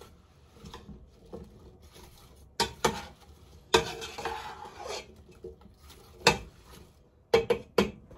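Spoon stirring sliced apples and butter in a metal pot, scraping through the fruit and knocking sharply against the pot's side now and then, with three quick knocks close together near the end.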